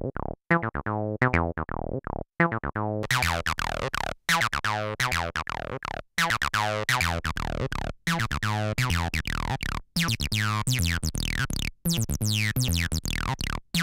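Behringer TD-3 analog bass line synthesizer, a TB-303 clone, playing a sequenced acid bassline. A fast run of short notes, each with a falling resonant filter sweep, loops with a brief break about every two seconds.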